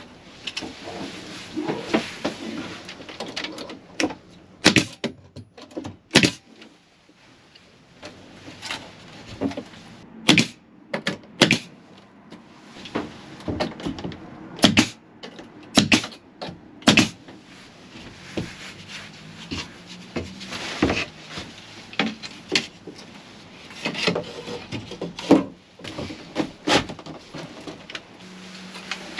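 Wood paneling being worked and fitted by hand: irregular sharp knocks and clicks, some in quick clusters, with rubbing and handling noise between them.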